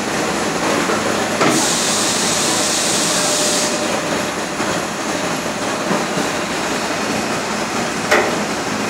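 Industrial gnocchi machine running steadily, its electric motor and forming mechanism making a continuous mechanical noise with a faint steady hum. About a second and a half in a clack starts a couple of seconds of hissing rustle, and there is a sharp knock near the end as the plastic trays are handled.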